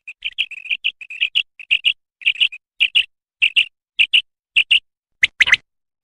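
Common quail calling: a quick run of short, high, clipped notes, often in pairs, about two a second, with a louder, harsher call near the end.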